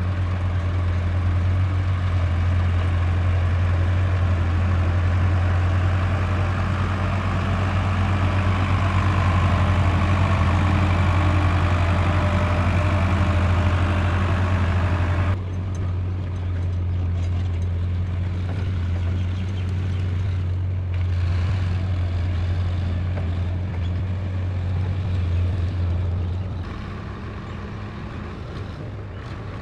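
Heavy diesel engine running steadily with a deep drone. About halfway the sound changes abruptly as the hiss above it falls away, and it grows quieter a few seconds before the end.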